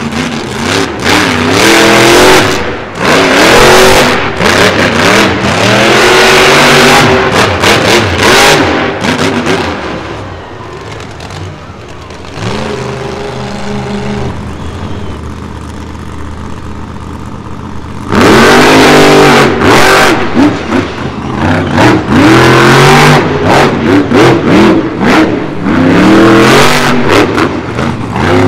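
Monster truck engine revving hard in repeated rising and falling bursts. Roughly a third of the way in it eases off to a lower, quieter run for several seconds, then goes back to full throttle.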